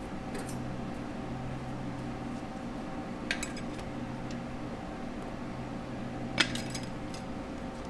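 Low-reverse clutch pack plates of a 4L60E transmission, steel plates and friction discs, clinking against each other as they are handled and stacked: a few sharp metallic clinks a few seconds apart, the loudest near the end. A steady low hum runs underneath.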